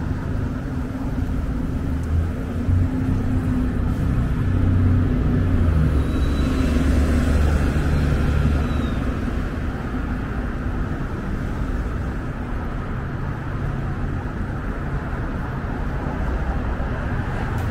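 Downtown street traffic, with a city bus's engine rumbling close by, loudest about five to nine seconds in, with a faint high whine over the same stretch.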